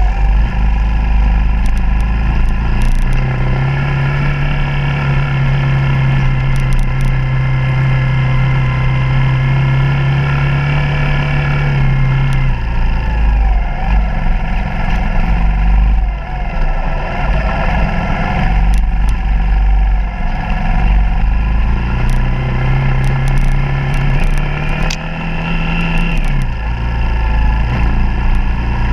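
Suzuki DR200's single-cylinder four-stroke engine under way on a dirt trail, holding a steady pitch for several seconds, then easing off about twelve seconds in and rising and falling with the throttle. It holds steady again later and drops back near the end.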